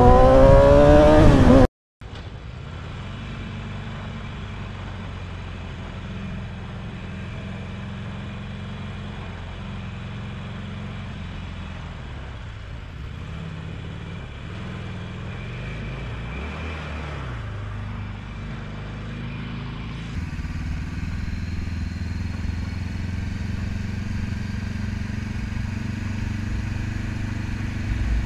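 A sport bike's engine revving up, rising in pitch, cut off suddenly. It is followed by a cruiser-style motorcycle's engine running steadily in traffic, and then, after another change about two-thirds of the way in, a second motorcycle's engine running steadily while cruising.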